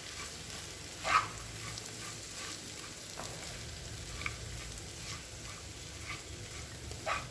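Soaked poha being stirred into fried onions in a pan: a spatula scraping and turning the mix, over a faint sizzle, with a louder scrape about a second in and another near the end.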